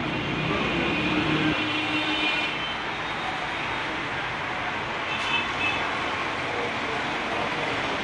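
Steady noisy background din, with a low rumble that eases after about a second and a half and short high-pitched tones about two seconds in and again about five seconds in.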